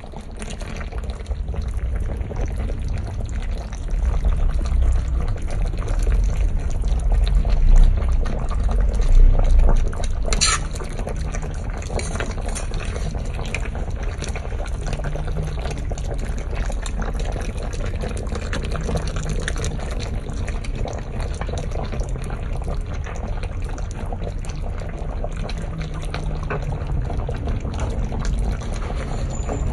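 Tomato-based chicken pochero stew bubbling as it simmers in a pan, a steady crackle of bubbles over a low rumble. There is a single sharp click about ten seconds in.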